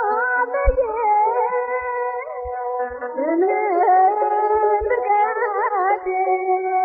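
Ethiopian Orthodox mezmur (hymn) sung in Amharic by a female singer, long melismatic held notes that bend and waver in pitch, over a few sparse low drum beats.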